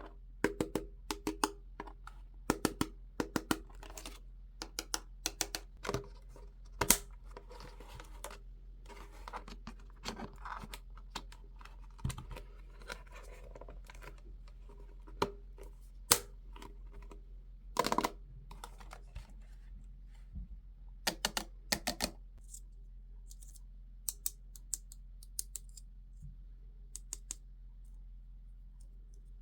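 Hands unboxing a Barbie doll set, handling plastic toy pieces and packaging: an uneven string of sharp clicks and taps with some light rustling. The clicks come thickest in the first several seconds, bunch up again about two-thirds of the way through, and thin out near the end.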